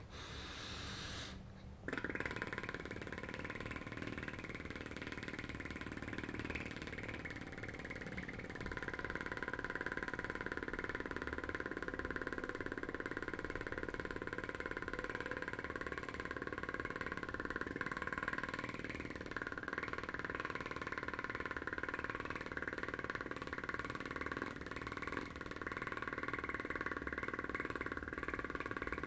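A man blowing a continuous raspberry with his tongue between his lips, making a sustained motorboat or fart noise with his mouth. It holds steady, with a brief drop about a second and a half in.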